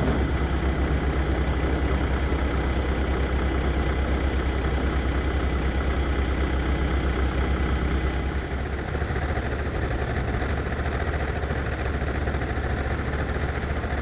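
Backhoe engine idling steadily, its low hum dropping a little and changing character about eight seconds in. A short sharp click comes right at the start.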